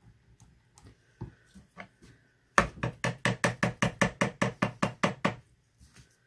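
Stick blender's head knocked rapidly against the rim of a plastic mixing bowl of soap batter, about fourteen sharp, even taps at some five a second, after a few faint clicks.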